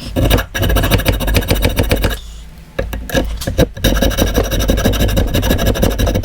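Small electric power-tool motor, such as a handheld drill, running in two spells: about two seconds, then a pause of about a second and a half, then about three seconds more.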